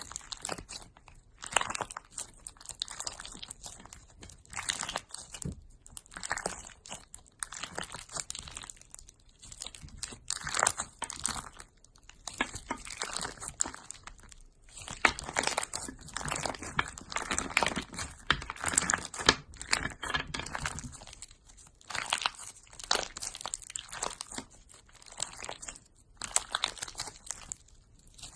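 Slime being squeezed and pressed by hand, giving irregular bursts of crackling and popping about a second apart, busiest about halfway through.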